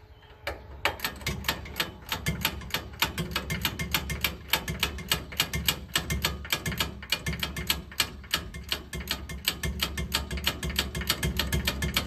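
A 3/8" ratchet with a 9/16" socket clicking steadily, about four clicks a second, starting about half a second in. The hub adapter bolts are being run down snug, not yet to final torque.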